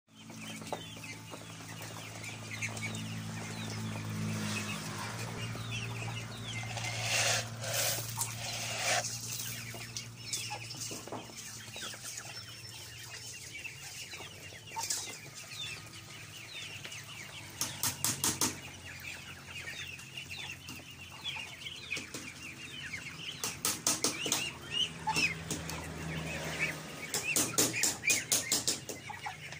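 A flock of Muscovy ducks and ducklings feeding on scattered grain: a constant chorus of thin, high duckling peeps, broken by several runs of rapid sharp clicks. A low steady hum sits under the first half.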